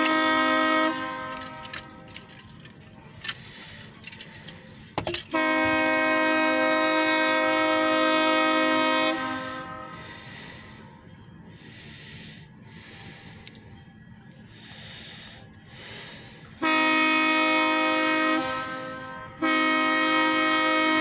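Locomotive air horn sounding the grade-crossing signal as the train approaches: a chord of several steady notes. First the end of one blast, then a long blast of about four seconds, a shorter blast, and the final long blast beginning near the end, with a low rumble between blasts.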